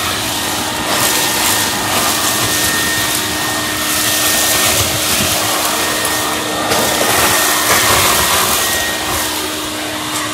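Wet/dry shop vac running steadily with a hum, sucking up wet mud slurry; the rushing intake noise swells and eases as it gulps the slurry.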